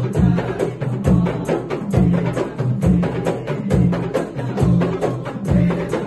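Hand-played frame drums and small hand drums in a steady beat, a deep stroke about once a second with quicker lighter strokes between, under voices chanting a zikir.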